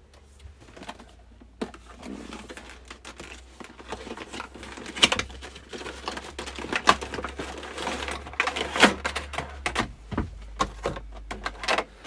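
Cardboard box being opened and unpacked by hand: cardboard flaps rubbing and rustling, with many irregular clicks and crackles from a clear plastic blister tray of parts being handled.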